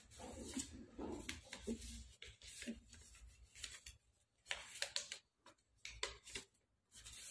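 Craft paper being folded and creased by hand, faint rustling with short irregular crackles throughout, over a low steady hum.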